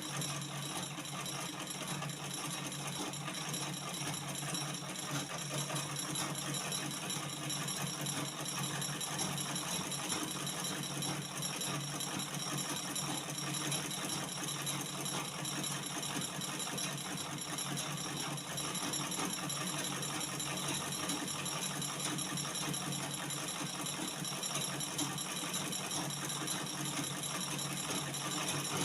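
Treadle-driven Butterfly black-head sewing machine running steadily, its needle and mechanism clattering rapidly while stitching.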